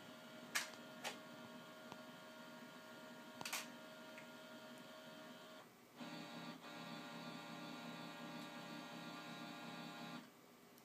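A scanner running: a steady whine with a few sharp clicks at first, then a louder motor whine for about four seconds, cutting off suddenly near the end.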